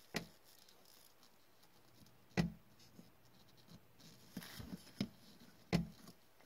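Cardboard trading cards being handled by gloved hands on a tabletop: soft scraping as cards slide over one another, with a handful of sharp taps as cards are set down, the loudest about two and a half seconds in and another strong one near six seconds.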